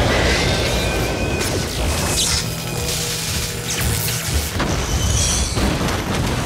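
Action-film sound design: electrical arcing and sparking with booms and crashing impacts, mixed over score music.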